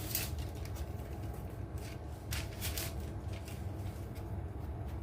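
Low steady hum with a few faint, soft clicks and taps of kitchen handling, spaced irregularly.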